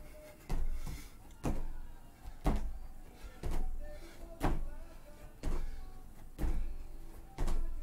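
Feet landing on foam exercise mats over a wooden deck in a steady rhythm of thuds, about one a second, during a side-to-side hopping drill.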